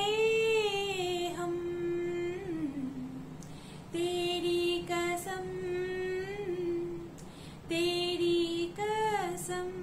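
A woman singing unaccompanied in long held notes, phrase by phrase with short breaths between.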